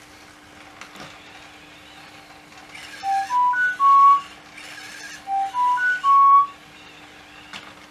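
Sony aibo ERS-311 robot dog playing a short four-note electronic tone melody twice, stepping up in pitch and then settling on a longer final note. A steady low hum runs underneath.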